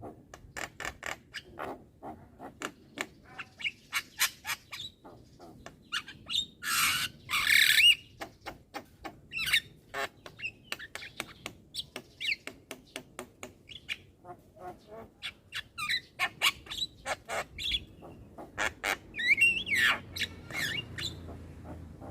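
Young Javan myna chattering without pause: a quick run of short clicks and chirps, broken by a loud, harsh squawk about seven seconds in and another near the end.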